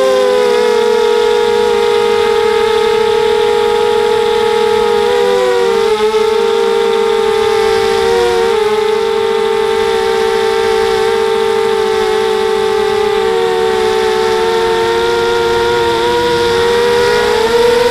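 FPV drone's brushless electric motors and propellers whining steadily in flight, heard through the onboard camera. Several close tones sound together and dip briefly in pitch a few times as the throttle changes.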